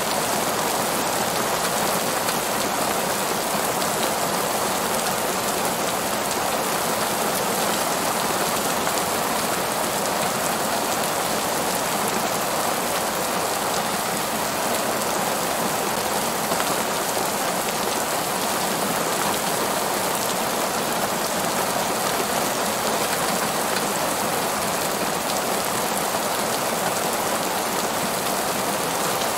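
Heavy rain falling steadily on the pavement of a parking lot: an even, unbroken hiss of many drops.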